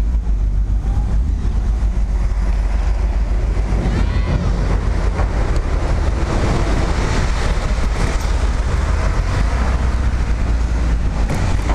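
Honda Goldwing motorcycle rolling off a ferry ramp and picking up speed on the road: a steady low rumble of engine and wind rush, growing louder about halfway through.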